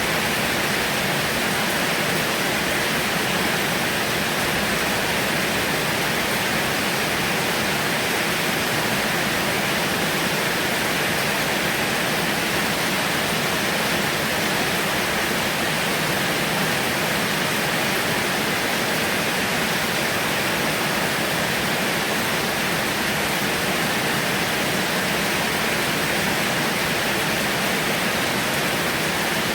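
Heavy rain falling steadily: a dense, even hiss with no thunder or breaks.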